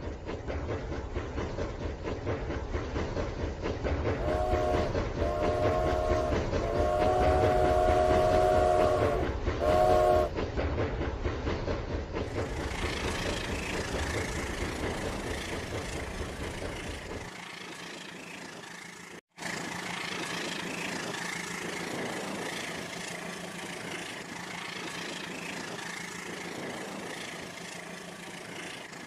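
Battery-powered Rail King toy train running on its track with a steady clatter of wheels and motor. About four seconds in, its built-in sound effect gives four horn toots, the third one long.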